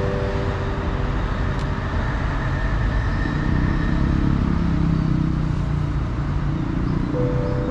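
Motor vehicle passing on a street, its low rumble swelling in the middle and easing off again.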